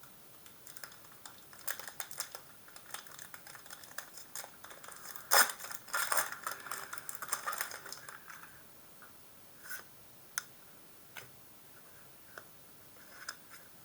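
Booster pack and trading cards being handled: small clicks and rustles, then a sharp crinkling tear about five seconds in, with rustling for a couple of seconds as the foil pack is opened. After that come a few scattered light taps of cards.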